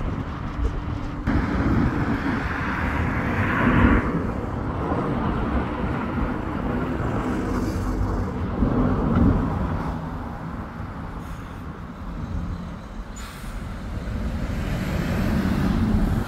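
Road traffic passing: car and van engines and tyres, with louder passes about four seconds and nine seconds in. Near the end a heavy lorry's engine grows louder.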